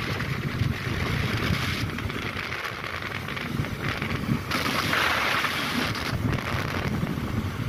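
Wind buffeting the microphone over the low rumble of a moving vehicle, with a louder rush of air about four and a half seconds in.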